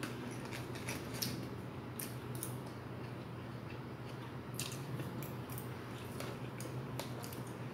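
Eating sounds: a metal spoon and fork clicking and scraping in a plastic food container, with chewing, over a steady low hum.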